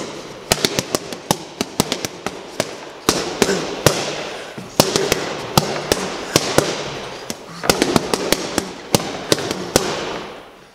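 Boxing gloves striking a hanging heavy punch bag in rapid flurries of sharp punches, several a second, during a 10-second all-out burst drill.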